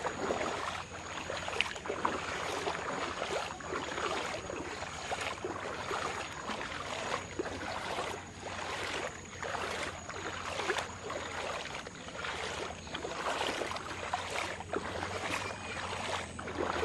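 Floodwater splashing in a quick, regular rhythm of strokes, somewhat under two a second, over a steady wash of water noise.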